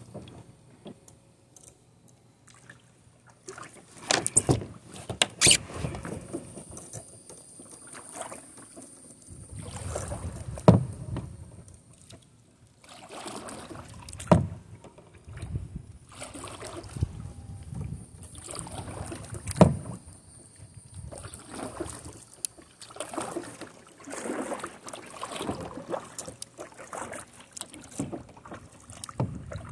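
Kayak paddle strokes: the blades dip and splash in the water, swelling every few seconds, with a few sharp knocks.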